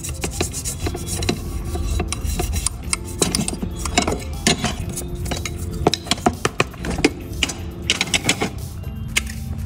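A brush scrubbing a wet gas stove burner grate in a tub of soapy water: rapid, irregular scraping strokes with small knocks of the grate against the tub.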